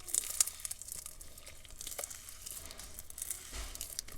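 Large batch of clear glue slime being kneaded and stretched by hand: irregular sticky crackles and small pops. The slime is stringy and close to over-activated.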